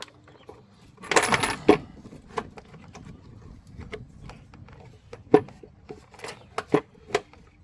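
Battery tray being worked loose in a Ford Super Duty engine bay: a burst of rattling and clinking, then a series of separate sharp clicks and knocks as it is wiggled free.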